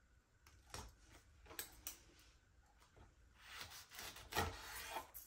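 A kitchen knife sawing through a rolled tortilla wrap on a wooden cutting board. A few light clicks and taps come first, then a longer sawing cut with sharp taps on the board near the end.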